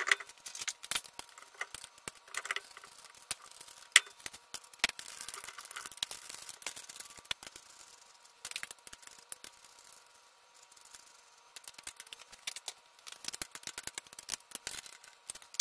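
Lug nuts being threaded onto a pickup truck's wheel studs by hand: scattered light metallic clicks and rattles, thinning out about two thirds of the way through and picking up again near the end.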